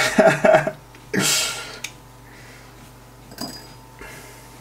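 A man's voice briefly, then a short loud rush of breathy noise, then a few faint clicks as a screwdriver and fingers handle the plastic and metal parts of an opened Pioneer CDJ-800 mk2.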